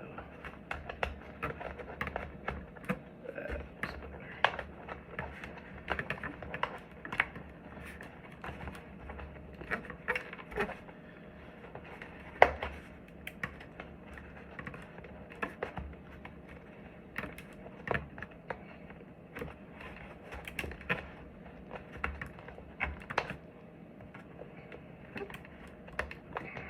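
Hands working inside a motorcycle helmet, pressing the liner and padding back in over newly fitted intercom speakers and wiring: irregular clicks, taps and rustles of plastic snaps and fabric. The sharpest click comes about twelve seconds in.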